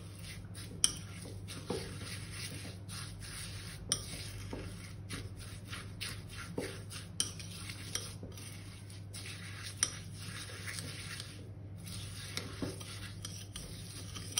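A fork stirring a thick paste of pistachio cream, tahini and shredded kadayif in a small ceramic bowl, with scattered clinks of metal on the bowl, over a steady low hum.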